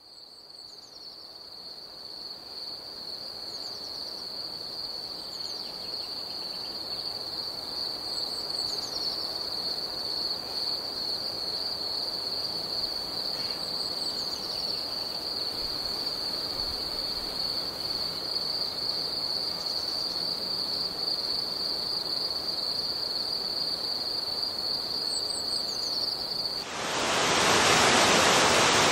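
A steady, unbroken high-pitched insect trill fades in and holds, with a few faint high chirps over it. Near the end it cuts abruptly to a louder, steady rushing noise.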